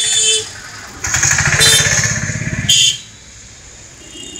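Street traffic. A vehicle horn blaring cuts off about half a second in. About a second later a small engine passes close, its rapid firing pulses loud, and it ends with a short high-pitched beep. A lower hum of traffic follows.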